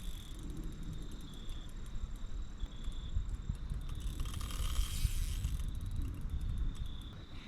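Fishing reel ticking rapidly while a hooked carp is played on the line, with faint insect chirping.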